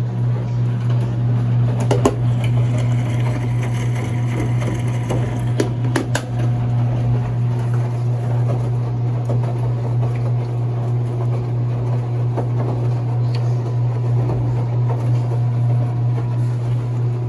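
Enxuta Soft 4 kg washing machine running with a steady motor hum. There are a couple of sharp clicks or knocks, about two and six seconds in.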